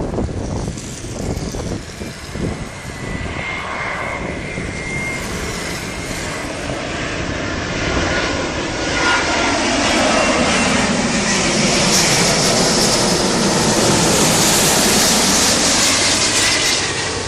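Airbus A350 airliner on landing approach passing low overhead. Its Rolls-Royce Trent XWB engines rise from a distant whine to a loud jet rush over the first half. They hold at their loudest for most of the second half, with a sweeping, phasing quality as it passes.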